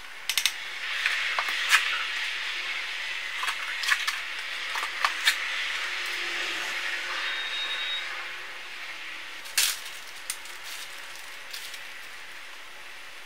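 Metal measuring spoon clicking and tapping against spice jars and a box as dry ingredients are scooped, a few sharp clicks over a soft steady hiss that fades about eight seconds in.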